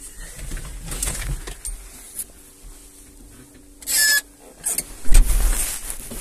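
Someone moving about in a tractor cab: rustling and small knocks, a short squeak about four seconds in, and a heavy thump a second later, the loudest sound here. The engine is not running.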